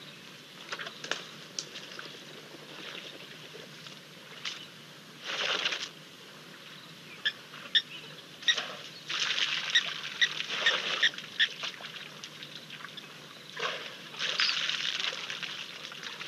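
African elephants splashing and sloshing through water and wet mud, in noisy bursts of a second or two, with short bird chirps in between.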